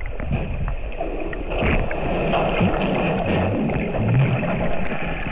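Waterfall pool heard from underwater: a muffled, steady churning rumble of falling water, with bubbling that grows stronger in the middle as a submerged swimmer breathes out.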